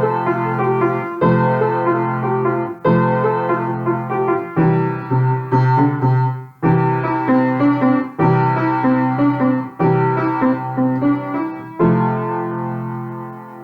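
Piano music playing a series of sustained chords, a new chord struck about every second and a half, fading at the end.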